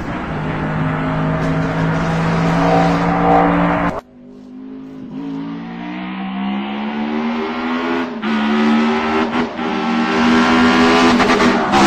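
Racing car engine at high revs, held steady, then cut off abruptly about four seconds in. It comes back quieter and climbs in pitch as the car accelerates, with short dips at gear changes around eight and nine and a half seconds in.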